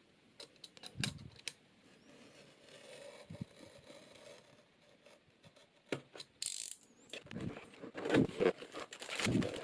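Hands breaking the seal sticker on a keyboard's cardboard box and opening it: scattered small clicks and light scraping, then from about two-thirds through, denser and louder rustling and crinkling of the packaging.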